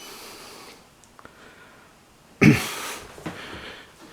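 A short, breathy vocal burst from a person, like a cough or huff, about two and a half seconds in, after a faint breathy hiss at the start.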